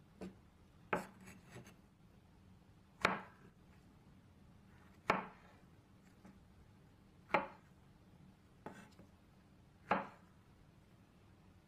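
Kitchen knife cutting strawberries on a bamboo cutting board: the blade knocks on the wood about every two seconds, five firm strokes with a few lighter taps in between.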